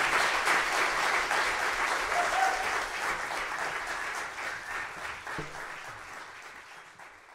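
Audience applauding, many hands clapping, with the applause fading away toward the end.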